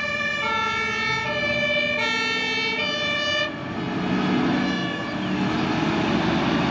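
German fire engine's two-tone horn sounding its alternating high-low call, a pair of notes about every second and a half, cutting off about three and a half seconds in. After that the turntable-ladder truck's engine is heard as it pulls away.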